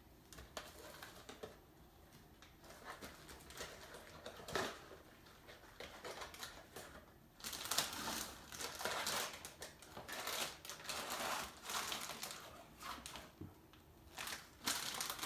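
Frozen taquitos taken out of their plastic bag and laid on a baking pan. There are scattered light clicks and taps, then from about halfway the bag rustles and crinkles in bursts.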